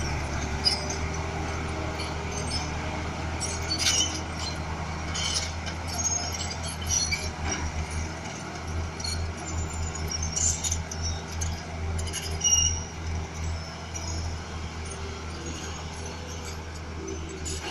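Diesel engine of heavy earthmoving machinery running with a steady low drone that begins to throb unevenly about halfway through. Scattered sharp clinks and squeaks come over the engine.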